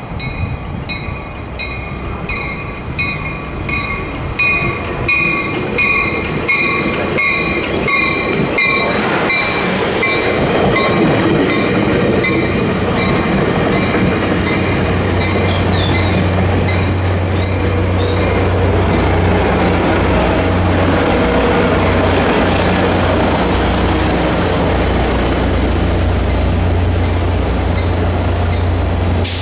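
Caltrain passenger train passing through the station. A bell rings about twice a second as the train approaches, then a loud rush of wheels on rail takes over as the cars go by, with high wheel squeal and the locomotive's low, steady diesel drone.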